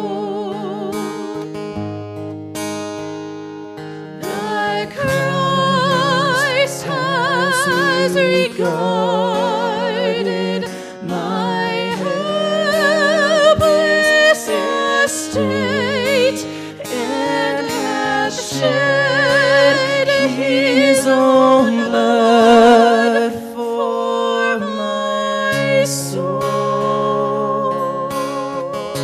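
A woman and a man singing a slow song together over an acoustic guitar, the sung notes held with a wide vibrato.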